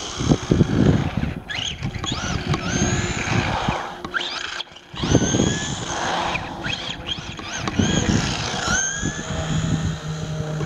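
A 6S electric RC buggy's motor whines up in pitch several times as the throttle is punched, over a steady rushing noise.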